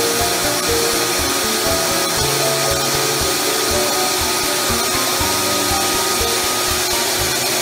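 Shaper Origin handheld CNC router running steadily as it cuts a tenon in wood, a continuous rushing noise. Background music with a steady beat and a simple melody plays over it.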